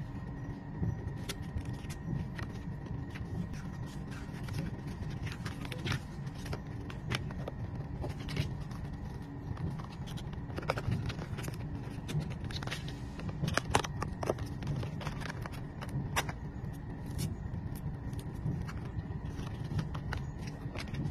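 Cardboard and paper packaging of a smartwatch box being handled and pulled apart: scattered crackles, taps and scrapes over a steady low background rumble.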